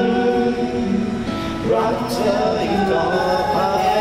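A man singing into a Magic Karaoke YS-10 Bluetooth karaoke microphone, his voice coming through its built-in speaker in long held notes that change pitch every half second to a second.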